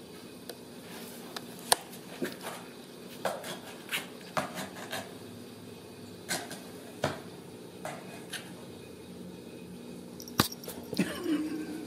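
A Ragdoll kitten scrabbling inside a cardboard box: irregular scratches and taps of its paws and claws on the cardboard, with a sharp knock about two seconds in.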